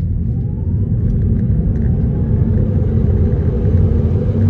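Steady low road and tyre rumble inside a Tesla Model 3 under hard acceleration from a throttle launch. A faint electric-motor whine rises in pitch about a second in.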